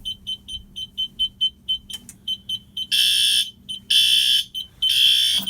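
Fire alarm horns sounding after a pull station is pulled. A rapid high beeping of about four or five pulses a second goes on throughout. About three seconds in, a louder horn joins with three half-second blasts about a second apart.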